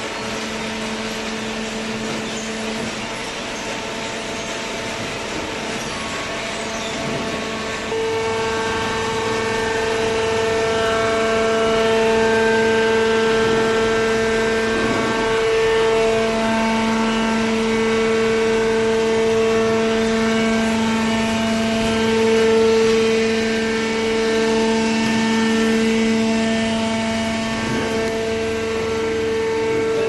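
Hydraulic cardboard baler running: a steady machine hum with a whining tone whose overtones swell and fade, growing louder about eight seconds in.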